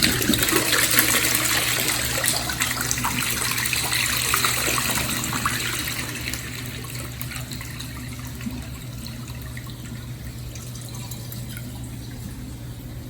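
TOTO low-tank flush: water rushes loudly and gurgles for about six seconds, then eases into a quieter steady flow of water.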